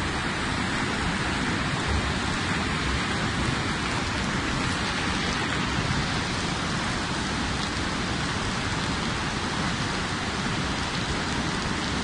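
Steady rushing of a swollen, muddy river in full flood: a continuous, even wash of turbulent water with no breaks.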